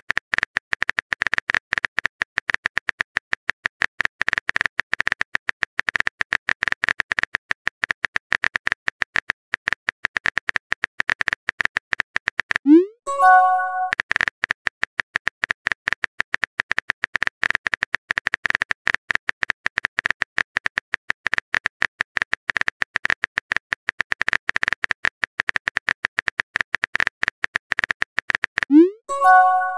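Rapid, continuous typing clicks from a texting app's keyboard sound effect. About halfway through and again near the end the clicks break for a short rising pop and chime as a message is sent.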